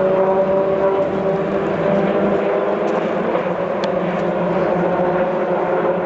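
Race car engines running with a steady drone, several pitches held level.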